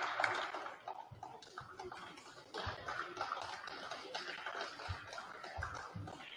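Indistinct murmur of spectators talking in a gymnasium, with a few dull low thumps.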